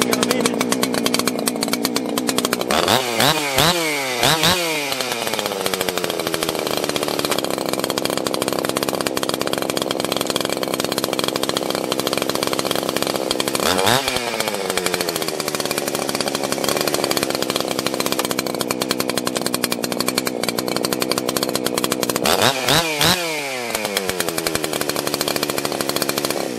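Husqvarna 281 80cc two-stroke chainsaw running warm at idle, revved in short bursts: a few quick revs about three seconds in, one near the middle and a few more near the end. The revving is part of a test of its newly replaced chain brake.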